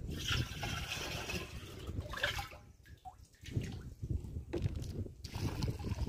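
Milky fertilizer drench solution sloshing and splashing in a plastic drum as a hand works a cloth bag through it, then, after a short lull, liquid glugging as it is poured from a plastic can into a knapsack sprayer tank.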